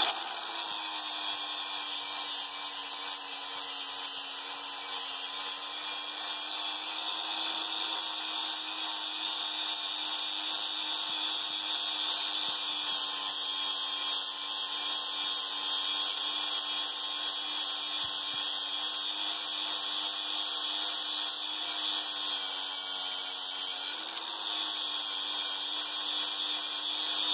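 Cordless angle grinder running steadily under load, its disc grinding down a pipe fitting to size so it will fit a 2-inch well pipe. The pitch shifts briefly near the end, then settles again.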